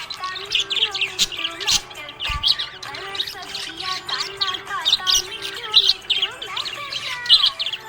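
Budgerigar chirping and warbling, a rapid, unbroken run of short high chirps and quick pitch glides.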